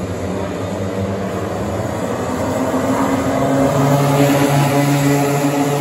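Several racing kart two-stroke engines buzzing at speed, a layered engine note from the pack. It grows louder about halfway through as the karts come closer.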